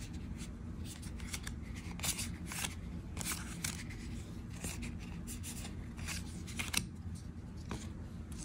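Foil trading cards sliding and flicking against one another as they are sorted by hand, a string of short, irregular swishes.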